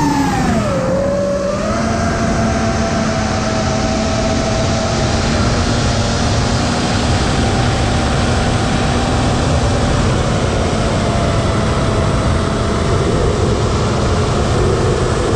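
FPV racing drone's electric motors and propellers whining over heavy wind rush on the onboard camera, the pitch dropping about a second in as the throttle eases, then holding steady.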